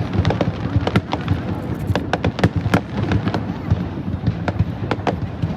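Fireworks going off: rapid, irregular bangs and crackles, several a second, over a continuous low rumble.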